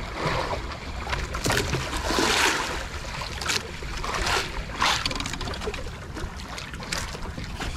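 Seawater lapping and splashing against the hull and outrigger floats of a small wooden outrigger boat, coming in several surges over a low steady rumble.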